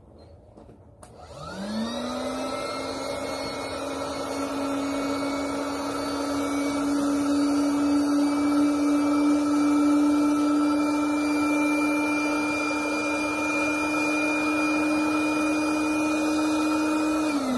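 Electric air pump inflating an air mattress to make it firmer. It starts about a second in, spins up with a rising whine, then runs with a steady vacuum-cleaner-like hum, and begins to wind down at the very end.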